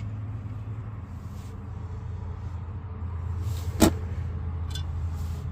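Brake parts or hand tools being handled: a single sharp clink about four seconds in, over a steady low hum.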